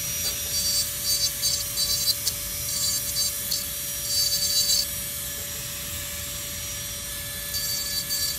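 A small burr in a rotary carving handpiece, running with a steady whine and grinding in short bursts through the first five seconds and again near the end, cleaning up under a carved bird's wire foot.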